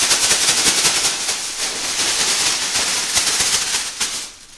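Freshly popped popcorn being shaken in a plastic microwave roasting bag, a continuous rustling rattle that stops shortly before the end.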